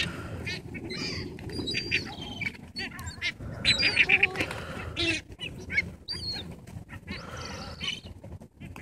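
A feeding flock of gulls, mostly ring-billed gulls, calling over one another in many short, high cries, with a quick run of calls about four seconds in.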